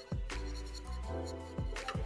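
Background music: an electronic beat with a deep bass line, kick drums and a snare hit about every second and a half.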